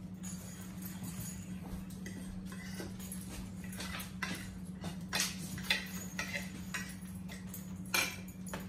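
Forks and knives clinking and scraping on ceramic plates as several people eat, with a few sharper clinks in the second half, over a steady low hum.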